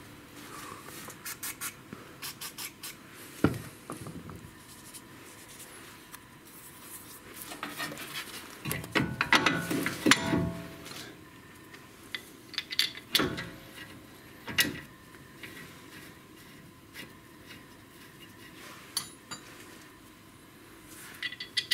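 Metal clinks, knocks and scraping as a front brake caliper is worked back over new pads and the disc, busiest in a flurry about eight to ten seconds in, with single sharp knocks scattered through the rest.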